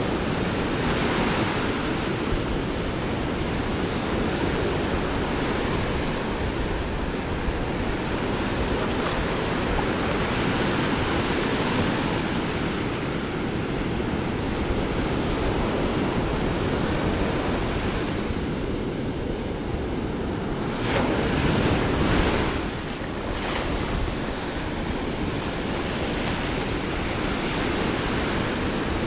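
Small surf breaking and washing up the sand at the water's edge, with wind on the microphone. There is a steady wash throughout, and a louder surge about three-quarters of the way through.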